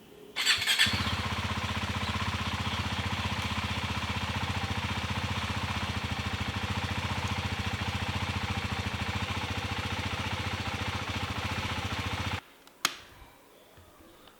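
KTM 390 Duke's single-cylinder engine cranked on the electric starter with a freshly fitted battery, catching within about half a second and then idling steadily. It cuts off suddenly near the end, and a single sharp click follows.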